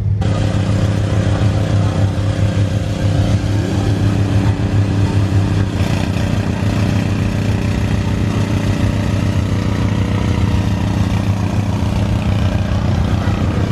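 Car engine idling steadily: a low, even drone with a hiss over it.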